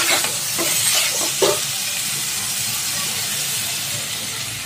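Sliced bottle gourd (lauki) sizzling as it is dry-fried in a kadai, with a metal spatula scraping and knocking against the pan a few times in the first second and a half.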